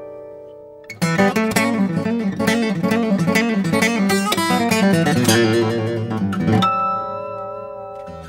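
Acoustic guitar music: a held chord fades away, then about a second in a fast run of picked notes begins. Near the end the run stops on a ringing chord that slowly fades.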